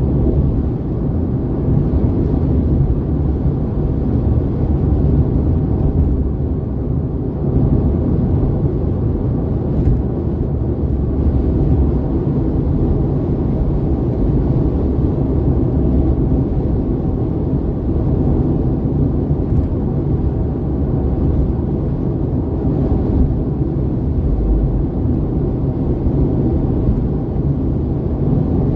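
Steady road noise inside a Honda Civic cabin at highway speed: a low rumble of tyres and engine that holds even throughout.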